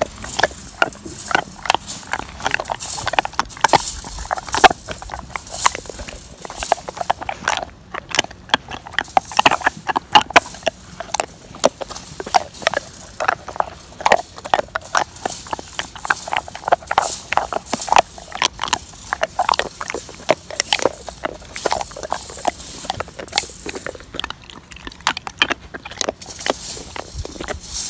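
Bernese mountain dog chewing and gnawing, heard close up: a dense, irregular run of sharp clicks, several a second.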